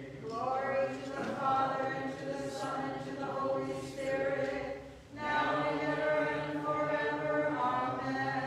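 Byzantine liturgical chant: voices sing long, held notes in stepwise phrases, with a short break between phrases about five seconds in.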